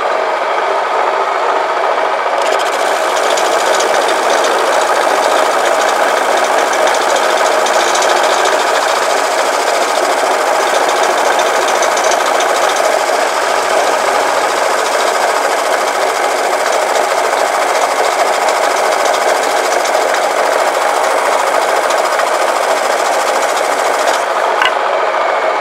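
Homemade wood lathe spinning a turned wooden spindle while a wooden stick is pressed against it to friction-burnish the surface, making a loud, steady rubbing hiss. The wood heats enough to smoke. The hiss turns brighter about two seconds in.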